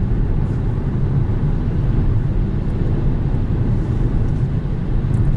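Steady road and wind noise inside the cabin of a 2020 Kia Soul cruising at highway speed, mostly a low rumble of tyres on the pavement.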